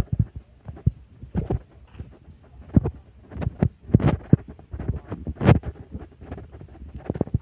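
Irregular low thumps of footsteps on a dirt path, heard through a handheld phone's microphone along with handling bumps.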